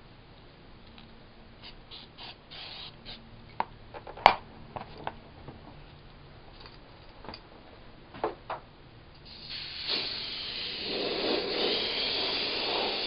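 Scattered small clicks and taps, with one sharp click a little before the middle. About three-quarters of the way in, an aerosol can of CA glue accelerator (kicker) starts spraying a steady hiss into a glued seam to set the cyanoacrylate glue.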